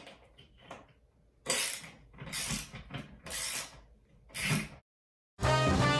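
Ratcheting socket wrench clicking in about five short strokes, tightening the nuts that hold a ceiling fan motor to its base plate. The sound then cuts off, and brass-led background music starts near the end.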